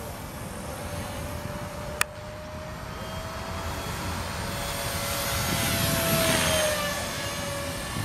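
E-Sky King 2 electric RC helicopter in 3D flight: a steady motor and rotor whine that swells as it passes closest about six seconds in, with a rushing sweep, then drops in pitch and fades. A single sharp click about two seconds in, over a constant low rumble.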